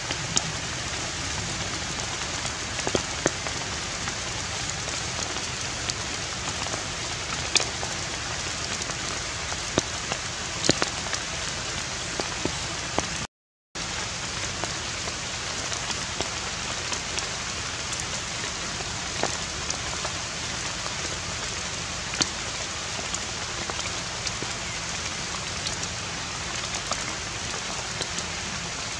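Steady rain-like hiss with scattered light ticks, cutting out for a moment about halfway through.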